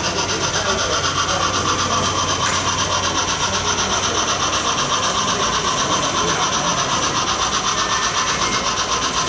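Model steam locomotive running across a trestle, its motor and gear drive giving a steady mechanical whir with a fast, even clicking pulse.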